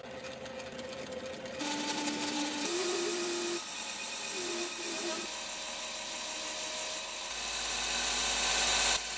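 Lathe running with a cutting tool working a groove into the spinning gear knob: a steady hiss that grows louder about one and a half seconds in, with brief whining tones from the cut between about two and five seconds in.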